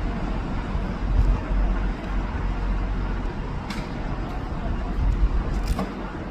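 Low, uneven rumble of trains at a station platform, with two short sharp clatters about four and five and a half seconds in.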